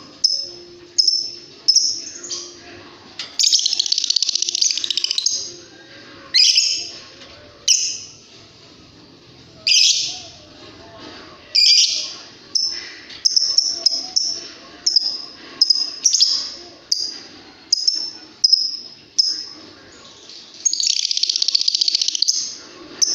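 Lovebird chirping: sharp high chirps repeated about once a second, broken by longer rapid chattering trills, one about three seconds in and another near the end.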